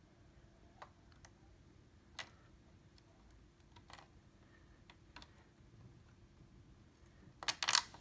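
SODIMM RAM module being pushed down into its memory slot: a few faint scattered clicks of plastic and metal, then a louder cluster of sharp clicks near the end as the slot's side latches catch the module.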